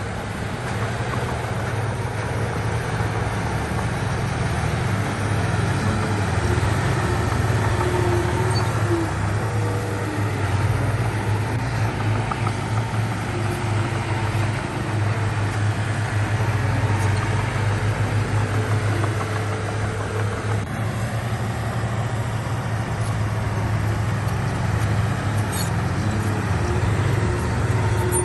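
Diesel engine of heavy earthmoving equipment running steadily under load, a continuous low hum with little change in level.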